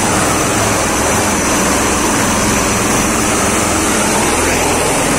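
Aircraft engine droning steadily and loudly, with a rush of wind noise over it.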